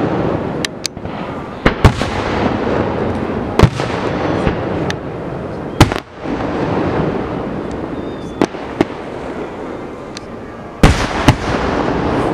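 Aerial fireworks display: about a dozen sharp bangs of shells bursting at uneven intervals over a continuous rumble of other bursts. Two of the loudest bangs come close together near the end.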